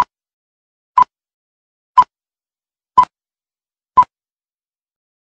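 Film-leader countdown sound effect: five short beeps one second apart, one for each number from five down to one.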